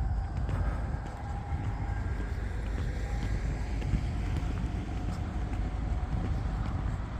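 Steady low rumble of distant engines, with a faint steady tone held through most of it.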